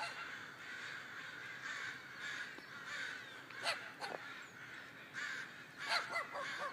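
A large flock of crows cawing from a tree, hundreds of calls overlapping into a continuous din as they go crazy over rival smaller birds. A few louder single caws stand out, a little past halfway and near the end.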